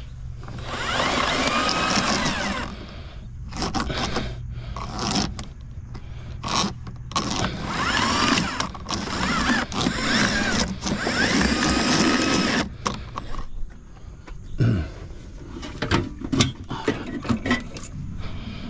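Electrical wires on a fish tape being pulled hand over hand through PVC conduit: repeated scraping pulls a few seconds each with short pauses between them, with squeaky friction through them. A few sharp knocks near the end.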